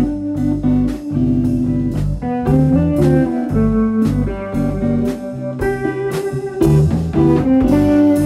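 Instrumental music led by plucked guitar, with bass notes underneath and drums keeping a steady beat.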